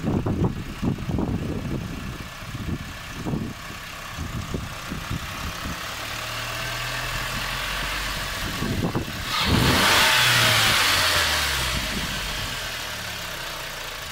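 Audi A4 B6's 2.0 ALT four-cylinder petrol engine running at idle, its revs climbing about two thirds of the way through with a loud hissing intake rush, then settling back down. This is an idle surge that the owner says comes on by itself on a cold, parked engine, shortly before it stalls.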